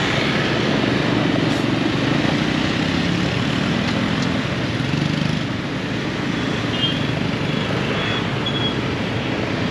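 Riding a motorbike through busy city traffic: the bike's engine hum and steady road noise, with other motorbikes and cars around. A few faint, short high beeps come near the end.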